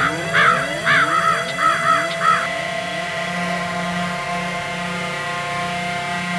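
A quick run of about seven harsh caws, stopping about two and a half seconds in, over a noise-drone music bed of held steady tones and repeated falling pitch sweeps.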